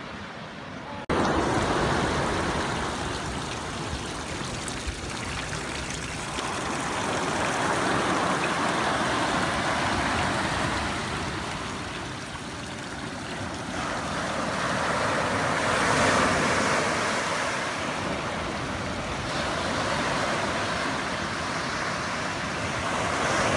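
Sea waves washing onto the shore: a rushing noise that starts suddenly about a second in and swells and ebbs slowly.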